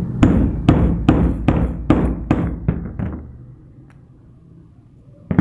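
A hand hammer striking a metal die held upright by hand, driving it down from above: about nine sharp metal taps, roughly two a second, growing softer and stopping about three seconds in, with one more knock near the end.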